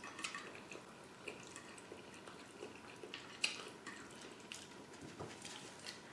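Faint chewing and mouth clicks of a person eating creamy pasta alfredo: a scattered series of small clicks, one sharper about three and a half seconds in.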